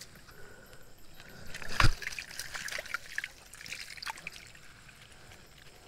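Water trickling and sloshing in the shallows with small scattered splashes and clicks, and one loud thump about two seconds in.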